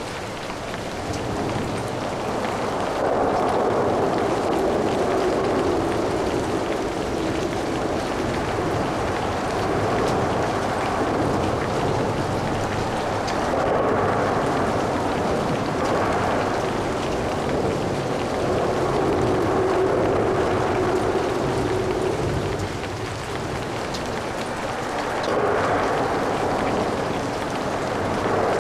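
Light rain falling steadily, with traffic hissing past on wet road. The traffic noise swells and fades every few seconds as vehicles go by.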